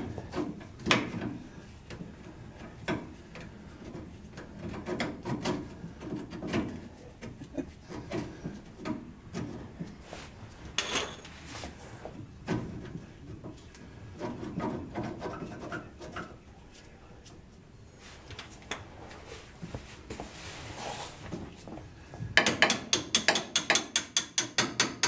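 Hand tools working on the front leaf spring assembly and suspension of a 1949 GMC truck: scattered metal knocks, clinks and scraping. Near the end comes a quick run of even clicks, about seven a second, like a ratchet wrench turning a nut.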